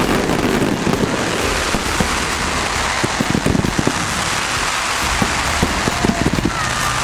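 Fireworks display finale: a dense, unbroken crackle of many small sharp pops, like heavy rain, from crackling stars and firecracker effects.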